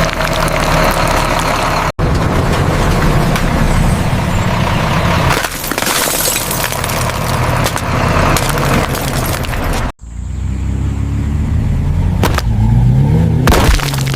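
Heavy truck engine running while its wheels crunch and crack through soft objects, in dense, loud crushing noise. The sound breaks off abruptly twice, about two seconds in and again near the middle, where one clip cuts to the next, and the engine note rises and falls near the end.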